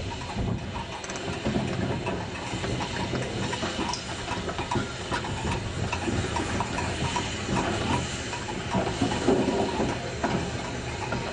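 BR Standard Class 4 2-6-0 steam locomotive moving slowly: steam hissing, with irregular clanks and knocks from its motion and wheels.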